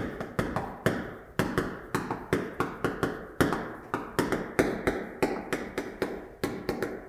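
Chalk writing on a chalkboard: a rapid, uneven run of sharp taps as each stroke of the characters goes down, several a second.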